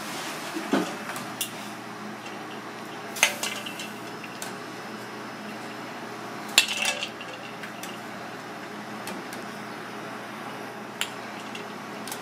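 Stainless steel bowl and a metal scoop clinking several times, sharp knocks with a short ring, while poached cod milt is moved into ice water; a steady hiss runs underneath.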